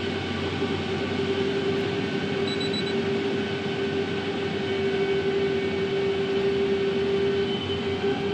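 Tractor engine running steadily under load while the Elmer's HaulMaster grain cart's right-hand unloading auger turns, emptying grain into a truck. A steady hum with one strong even tone runs throughout and grows slightly louder toward the end.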